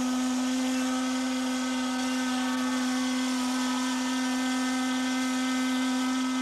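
Steam whistle of the steam streetcar boat Minnehaha sounding one long, steady blast.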